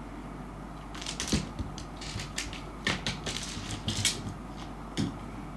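Dried persimmon seed clicking and skittering across a wooden floor as a cat bats and chases it, mixed with the cat's paws scrabbling on the boards: a run of irregular sharp clicks and taps starting about a second in, then a single tap near the end, over a steady low hum.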